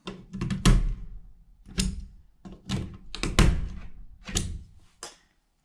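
Plastic plug-in receptacle tester being pushed into and pulled out of a duplex wall receptacle: a series of about six sharp clunks and scrapes of prongs and plastic against the outlet.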